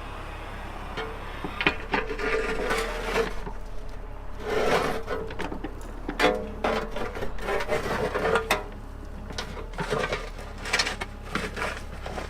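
Mini excavator running with a low steady hum, with about five bouts of scraping and grinding as its bucket pushes dirt and rocks back into a cable trench. A whine sounds with each bout.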